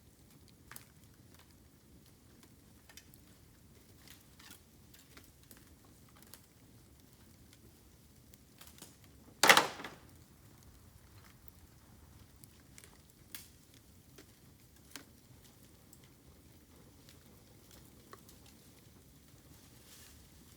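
Bamboo burning in a campfire: sparse crackles and ticks, with one loud pop about halfway through as a sealed section of bamboo bursts in the heat.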